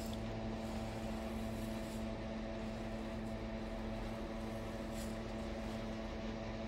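A steady motor hum at one unchanging pitch, with overtones above it.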